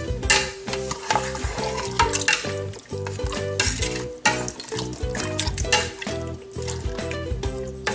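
A wooden spoon stirring and scraping raw meat pieces around a metal pressure cooker pot, in irregular strokes. Background music plays underneath.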